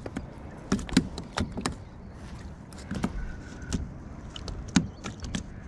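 Irregular sharp clicks and knocks from a fishing rod and reel being handled aboard a plastic kayak, over a low rumble.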